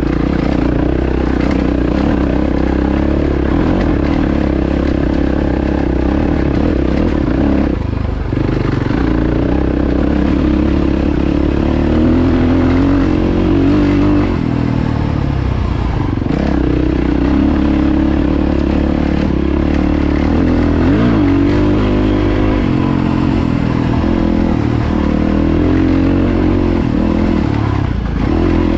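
Yamaha WR450F dirt bike's single-cylinder four-stroke engine running while ridden, its revs rising and falling, with brief drops about eight and fourteen seconds in as the throttle is eased.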